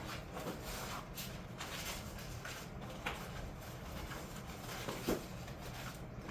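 Faint handling noise: a few light taps and rustles over a steady low hum.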